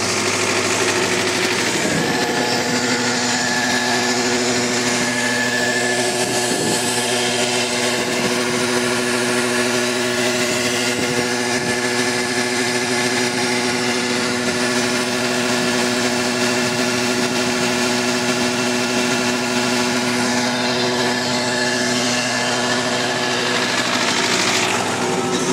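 Belarus 820 tractor's diesel engine running steadily at a constant speed, with an even drone and no change in pitch.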